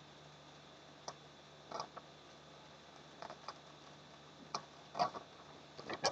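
Scattered light clicks and taps of small objects being handled, irregular and a few at a time, the loudest cluster near the end.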